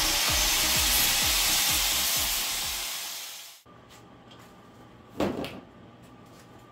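Power tool grinding steel, a loud, steady hiss that fades and is cut off suddenly about three and a half seconds in. A single knock of metal on the workbench follows about five seconds in.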